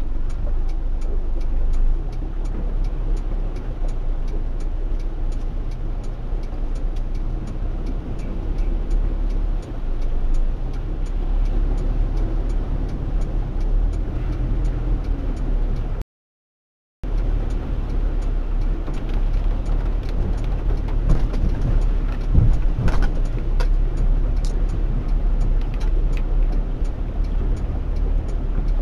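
Steady low rumble inside a Honda Odyssey minivan driving slowly through a flooded street, with faint regular ticking and a few knocks later on. The sound cuts out completely for about a second midway.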